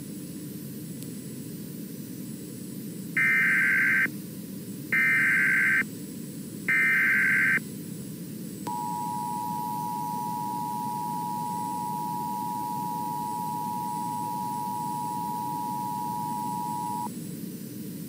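Emergency Alert System SAME header: three short bursts of digital data tones, each just under a second and about a second apart, then the two-tone EAS attention signal held steady for about eight seconds, over a steady low hiss. Together they herald a National Weather Service flood warning.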